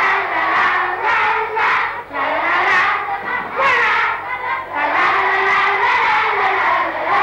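A man singing into a microphone in a high voice: long held, wavering notes with slides between them.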